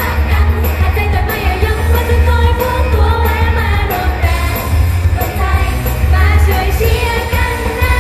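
Thai idol-group pop song performed live over a loud concert sound system: female voices sing a bright melody over a pulsing heavy bass beat.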